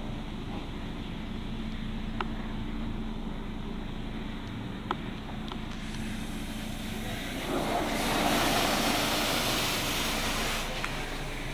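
Heard from inside a truck's cab in an automatic car wash: a steady low hum, then from about six seconds in the hiss of pre-soak spray hitting the body and windows, growing louder and cutting off suddenly near the end.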